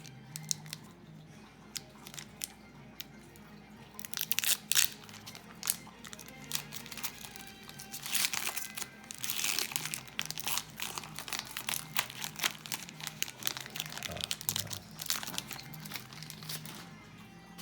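Foil trading-card pack wrapper crinkling and tearing as a pack is opened and handled, in irregular rustling spells with the loudest crinkles a few seconds in and near the middle.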